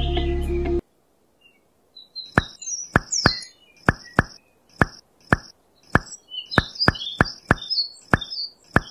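Background music cuts off just under a second in. After a short pause comes a run of sharp taps, about two a second: miniature clay bricks being set down one by one around a model hand pump's base.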